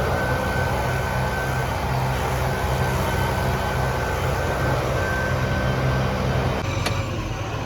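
An engine running steadily at constant speed, with a faint steady high whine over it; the engine's note drops about six and a half seconds in, followed by a few light clicks.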